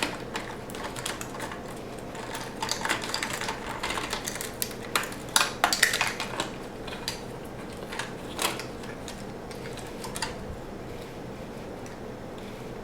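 Light plastic clicks and rattles from the Roomba 500's bumper and cliff-sensor parts and wiring being handled and fitted by hand, coming in irregular clusters, busiest early in the middle, with a faint steady hum underneath.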